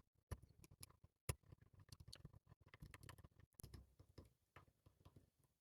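Faint, irregular clicks and light scraping of a pick working the pins of a Van Lock padlock, with one sharper click about a second in.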